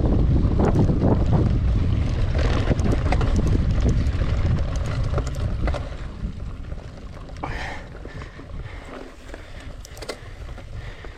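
Wind buffeting the camera microphone over a low rumble and scattered knocks and rattles from a mountain bike moving over a trail. It eases off about six seconds in.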